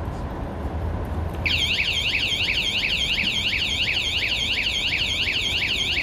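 Wsdcam 113 dB anti-theft bicycle alarm going off about a second and a half in: a very loud, high-pitched siren that warbles rapidly up and down, about three sweeps a second, without stopping.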